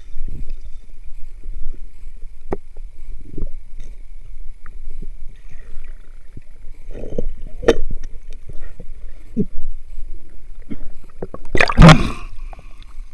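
Muffled underwater sound from a submerged camera: a low rumble and gurgling with scattered knocks and clicks, then a loud splash near the end as the camera breaks the surface.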